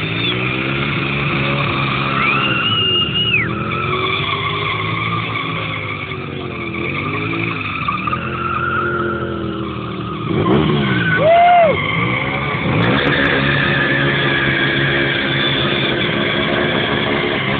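Stunt motorcycles' engines revving up and down repeatedly, with tyres squealing on the asphalt now and then; the loudest burst of revving and squeal comes about eleven seconds in.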